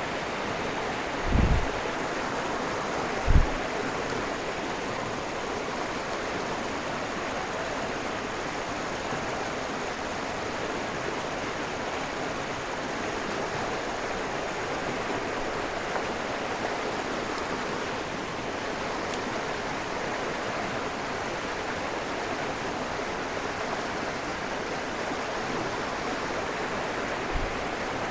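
Rushing water of a rocky stream rapid, a steady hiss of fast-flowing water. Two short low bumps sound in the first few seconds.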